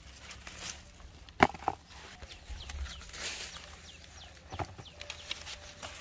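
Chickens clucking and peeping, with short high chirps through the middle. Two sharp knocks come about a second and a half in, and a third a little past the middle.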